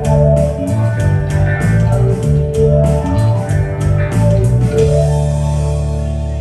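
Live band music with guitar and bass over a steady beat; about five seconds in the beat stops and a final held chord rings out and fades, ending the song.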